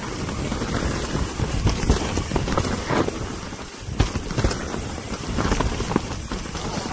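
Mountain bike descending a rooty dirt trail: tyres running over dirt and roots, with repeated knocks and rattles from the bike over the bumps and wind buffeting the microphone.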